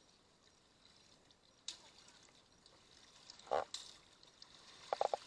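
Water splashing and pouring as a scoop net is worked in shallow floodwater, with a louder splash about three and a half seconds in and a few quick splashes near the end.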